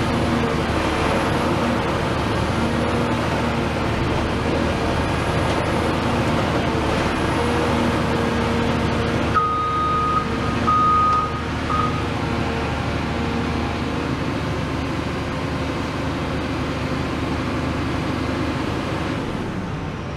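Caterpillar 336F excavator's C9.3 diesel engine running steadily, its pitch wavering slightly. About nine seconds in, a loud high beep sounds three times within about two and a half seconds, the first the longest and the last very short.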